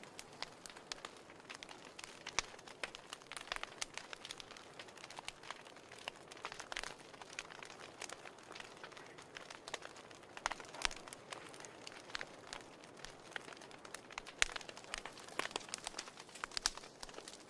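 Wood fire burning in a fireplace, crackling with irregular sharp pops and snaps over a soft steady hiss of the flames.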